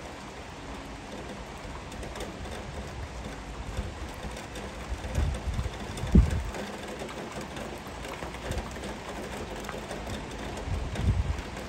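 Heavy rain falling steadily, an even hiss of rain on leaves and surfaces. A few low bumps break in about halfway through and again near the end, the sharpest one about halfway.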